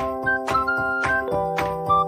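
Background music with a steady beat over held chords; the chord changes a little past halfway through.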